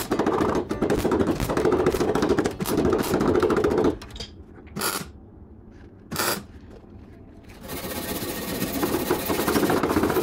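MIG welder crackling as it stitch-welds a replacement steel lower quarter panel onto a Holden Torana LJ body. It runs for about four seconds, then gives two short blips of the arc about a second and a half apart. The work is done in short runs to keep the panel from distorting.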